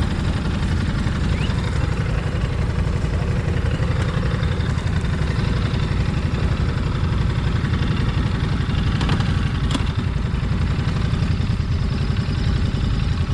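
Motorcycle engine idling steadily, with a fast, even low pulse.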